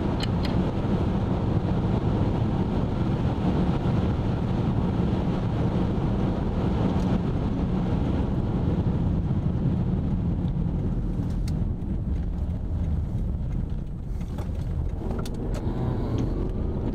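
Steady low rumble of a moving car heard from inside the cabin: tyre and engine noise on the road, with a few faint ticks in the second half.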